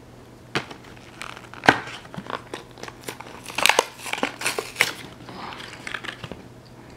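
Plastic blister pack of a carded Hot Wheels toy car being pried and torn off its cardboard backing: a run of irregular crinkling and crackling snaps, the loudest about a second and a half in, stopping just after six seconds.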